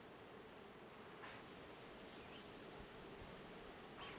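Faint buzzing hum of many honeybees and bumblebees foraging in a basswood tree in full bloom, with a steady thin high-pitched tone running throughout.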